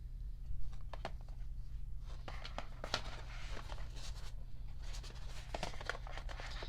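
Handling noise from a DVD disc folder and its discs: scattered light taps and rustling, over a steady low hum.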